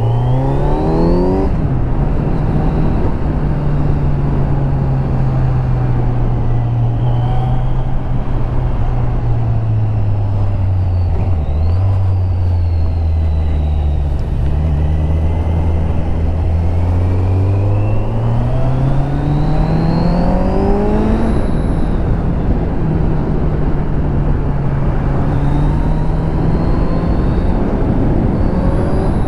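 Kawasaki Z900's inline-four engine through its stock exhaust under way. The revs rise and drop with an upshift about a second and a half in, then ease off through the middle. A long rising pull runs from just past halfway to about two-thirds through and ends in another upshift, after which the engine holds steady.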